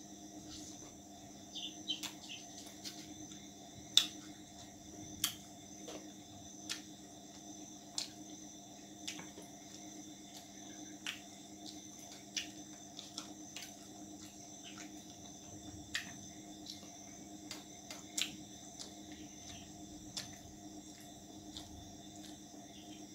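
Close-up sounds of eating roti and chicken curry by hand: sharp wet clicks and smacks of chewing, about one every second or so, the loudest about four seconds in. A steady high whine and a low hum run underneath.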